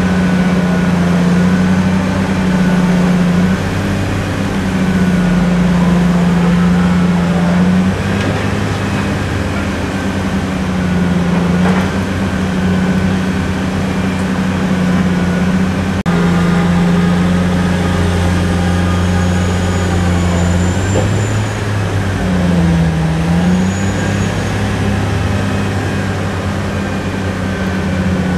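Heavy diesel engine of a Bauer MC 64 crawler crane running steadily, a low drone whose pitch shifts and dips briefly now and then as the load changes.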